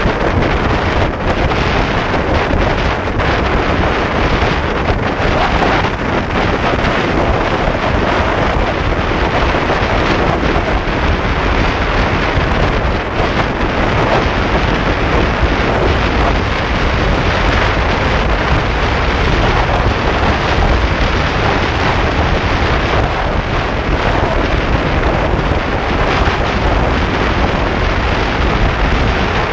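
Heavy wind noise on the microphone of a GoPro on a Yamaha R15 motorcycle riding at highway speed: a steady, loud rush with no distinct engine note.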